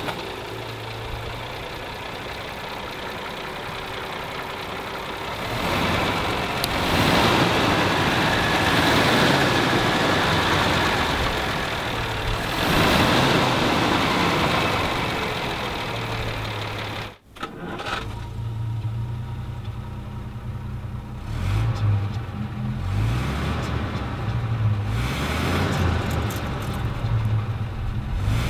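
1936 Rolls-Royce 20/25's straight-six engine running, first heard at the engine bay and revved up twice, then heard at the tailpipe idling with a low, even exhaust beat and a couple more blips of the throttle.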